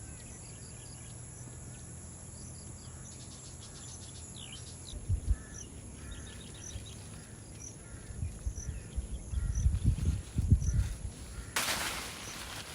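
Birds and insects chirping in short repeated calls over a steady outdoor background. Low thumps come about five seconds in and again in the second half, and a broad rustling noise starts near the end.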